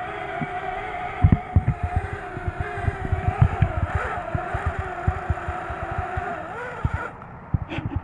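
Parrot Bebop quadcopter's motors and propellers whining steadily close to the ground, with low thumps of wind buffeting the microphone. Near the end the whine wavers and cuts off as the motors stop.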